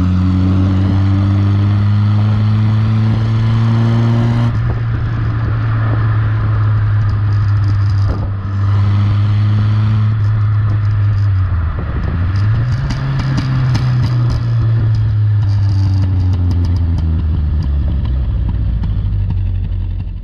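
Renault Super 5 GTS four-cylinder engine and exhaust running with the intermediate silencer removed, the car under way. The note rises under acceleration for about four seconds and drops at a gear change, then holds steady, dips and climbs again near the middle, and eases off towards the end.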